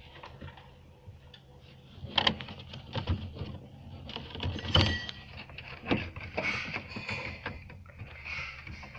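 Hands feeding a thin camera cable along the car floor under the rear seat and plastic trim: rustling and scattered plastic clicks and knocks, the loudest knock about five seconds in.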